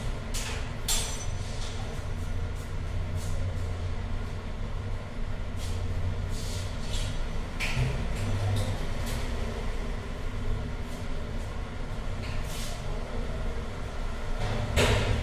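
Metal clicks and knocks from a steel almirah's handles, inner locker and doors being worked by hand, over a steady low rumble. A louder bang near the end as a door is pushed shut.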